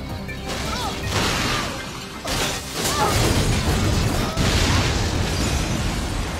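A film sound-effect explosion: a sudden blast about two seconds in, then heavy rumbling and shattering glass, with music and a few short cries underneath.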